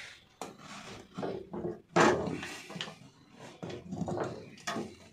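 Metal pot lid being worked loose and lifted from its hardened dough seal: irregular scraping, creaking and knocking, with one sharp knock about two seconds in as the loudest.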